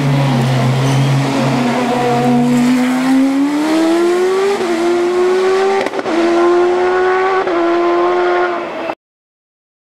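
Silver Car sports-prototype race car engine at full throttle on a hillclimb. Its pitch falls as it passes, then rises as it pulls away uphill, with quick dips as it shifts up and a sharp crack at one shift. The sound cuts off abruptly about a second before the end.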